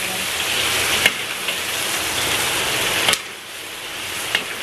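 Long green chilies sizzling steadily in hot oil in a metal wok, fried until half-cooked, with a few sharp clinks of a metal spatula against the wok as they are turned.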